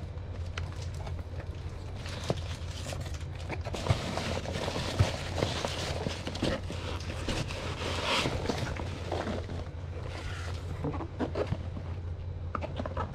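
Hands opening the flaps of a cardboard shipping box and rummaging through foam packing peanuts: rustling with scattered small clicks, loudest in the middle, over a steady low hum.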